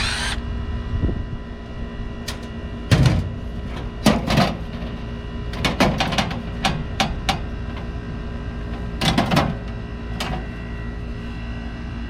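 Package HVAC unit running with only its fan on, giving a steady hum, while a technician handles tools and metal panels, with a series of sharp clicks and knocks.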